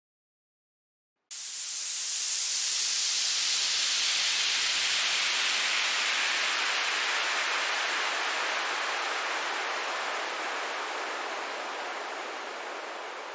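Synthesized white-noise downlifter starting suddenly about a second in: bright hiss that sweeps slowly downward and fades, with its low end cut out.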